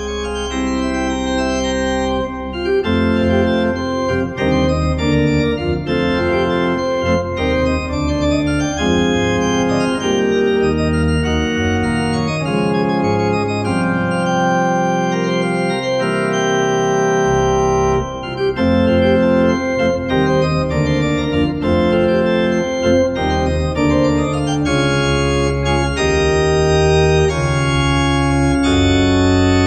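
Organ music: sustained chords that change every second or two over a deep bass line.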